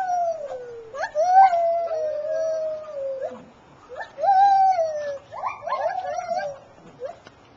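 Gibbons calling: quick rising whoops that run into long held notes which slowly fall in pitch, in about three loud phrases, with a short pause before the last.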